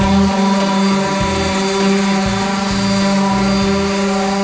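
Makita electric sander running steadily with an even motor whine as it scuffs the painted steel body of a VW bus with 80-grit paper, with background music underneath.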